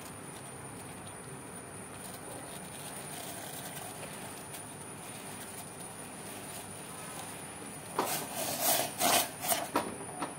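Steady hiss of liquid bubbling in a stainless steel pot on a gas burner, with several loud, short noisy bursts about eight seconds in.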